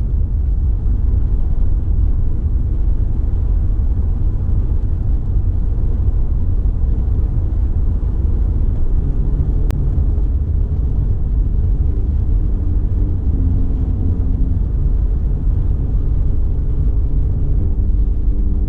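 Car driving at speed, a steady low road-and-engine rumble. A few faint low tones come in over the second half.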